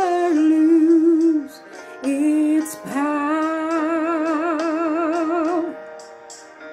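A woman singing a slow gospel song solo. She holds three notes, and the last is long, with a wide, even vibrato.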